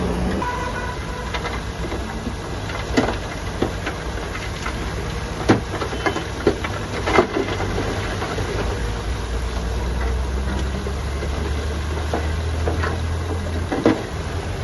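Heavy diesel construction machinery running steadily, with irregular sharp metallic clanks and knocks a few times.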